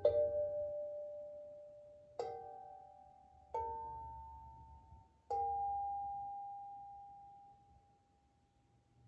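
Steel tongue drum played slowly: four single notes struck a second or two apart, each ringing clearly and fading. The last note rings on for a few seconds and dies away.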